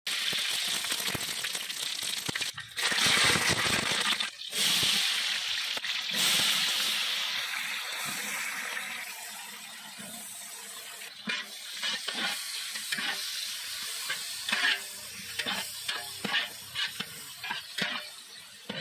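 Hot oil in a large aluminium pot sizzling as chopped red onions are tipped in. The sizzle is strongest in the first several seconds, then fades. In the second half a metal ladle stirs the onions, with repeated scrapes and knocks against the pot.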